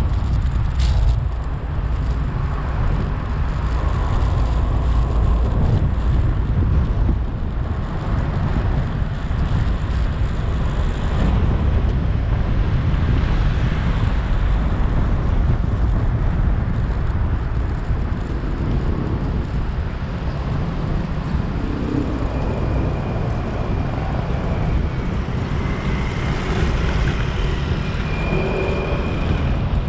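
Steady low rumble of road and traffic noise heard from a moving vehicle, with a few faint higher tones near the end.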